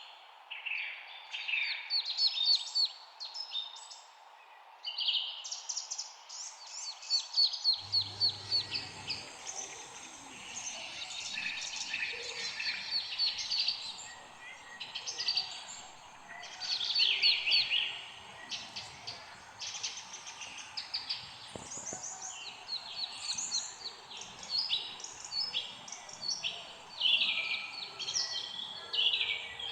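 Several songbirds chirping and trilling in quick runs of repeated notes, overlapping one another, over a steady background hiss.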